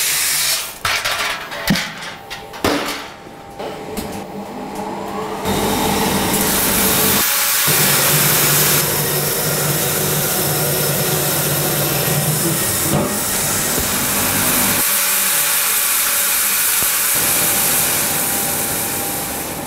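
Green coffee beans pour from a metal bucket into a coffee roaster's metal tray with a dense rattle for the first few seconds. About five seconds in, a loud, steady rush of air from the roasting machinery's blower starts, with a low hum under it, and runs on.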